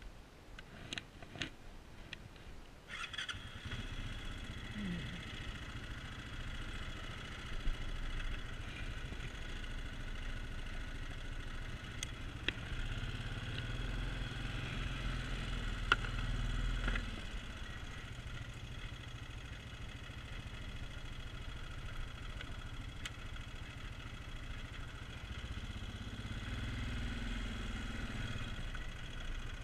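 ATV engine: a few clicks, then the engine starts about three seconds in and keeps running steadily as the quad is ridden over a rough woodland trail, a little louder around the middle.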